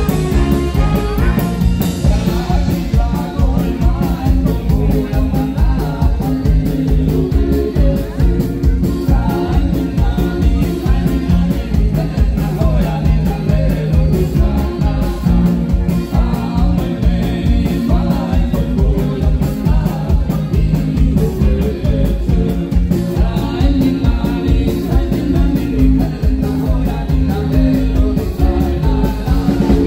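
Live band music with a brass section of saxophone, trumpet and trombone, electric guitar, bass and drums keeping a steady beat, and a singing voice, in an upbeat ska-like style.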